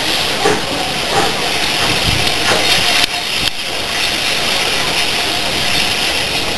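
Steam locomotive pulling away with its train: a steady hiss of steam with a few exhaust beats in the first half.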